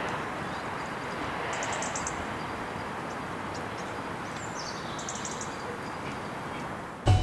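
Outdoor ambience: a steady wash of background noise with faint, quick high bird trills twice, about a second and a half in and again near five seconds. Music cuts in just at the end.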